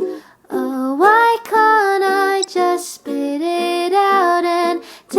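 A female voice sings a melody, holding and sliding between notes, over strummed ukulele chords.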